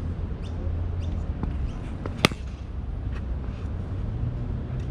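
A single sharp crack of a cricket bat striking the ball about two seconds in, over a steady low rumble.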